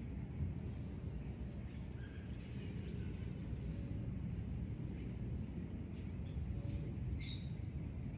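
Outdoor park ambience: a steady low rumble with scattered faint bird chirps, and two short sharp chirps about seven seconds in.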